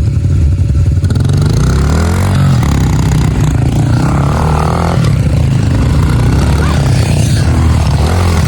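Several pit bike engines running and revving together, with rising pitches about two seconds in as the bikes pull away.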